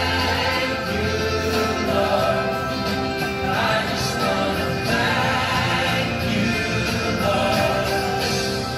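Background music: voices singing a slow song with long held notes over an instrumental accompaniment.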